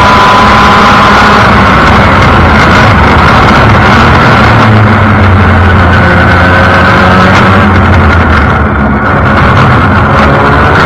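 Formula Mazda race car's rotary engine at speed on track, heard from the onboard camera with rushing wind. The revs drop as the driver lifts about eight seconds in, then climb again under acceleration near the end.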